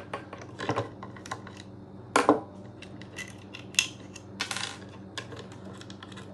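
Steel parts of a knife sharpening system being handled: an irregular series of metallic clicks and knocks, the loudest about two seconds in, with a short scrape a little after the middle.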